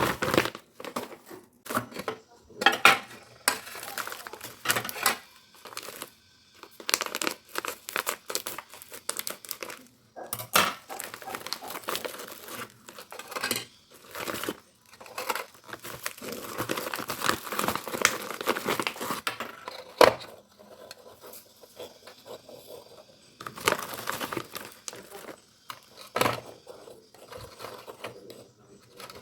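Plastic packaging being crinkled and torn open by hand, in irregular rustling bursts with scattered sharp clicks.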